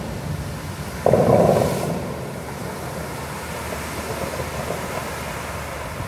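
Water from the tall fountain jets falling and splashing back into the pool: a steady rushing, with a sudden louder surge about a second in that fades away over the next second.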